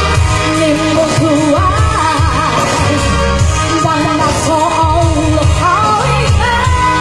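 A singer's voice, held on notes with a wavering vibrato, over backing music with a pulsing bass line.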